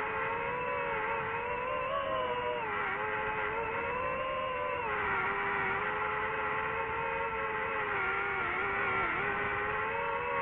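DJI FPV drone's motors and propellers whining steadily, the pitch wavering up and down.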